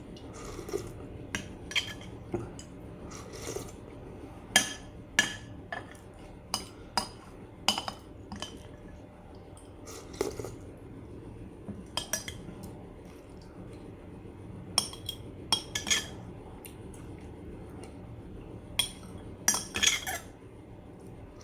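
Cutlery clinking and scraping against dishes in short, irregular knocks, a few every second or two, some ringing briefly.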